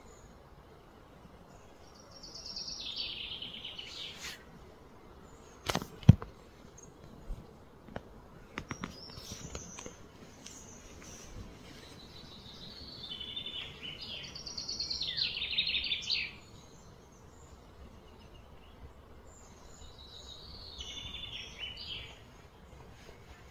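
Outdoor ambience with three bouts of high, rapidly pulsing chirping calls, each a few seconds long. A single sharp knock about six seconds in is the loudest sound, followed by a few fainter clicks.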